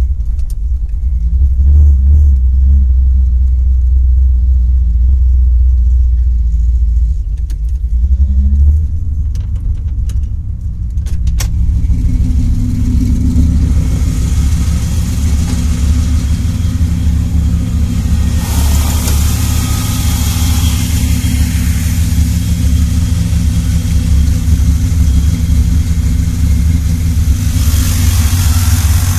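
402 Chevrolet big-block V8 with a Comp Cams Big Mutha Thumpr cam running with a deep rumble and a couple of light blips of the throttle, then settling into a choppy, lopey rough idle about a third of the way in. A hiss comes and goes over the engine in the second half.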